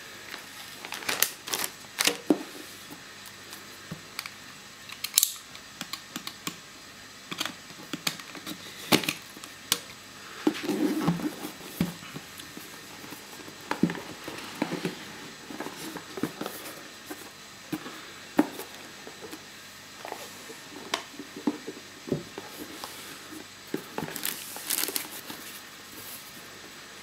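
Unboxing a cardboard box by hand: irregular clicks, knocks and scrapes of cardboard and plastic, with brief rustles of packing material as it is cut open and the lid and inner wrapping are lifted off.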